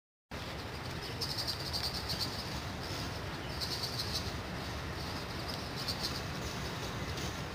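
Insects chirping in repeated high-pitched pulsing bursts over a low steady rumble.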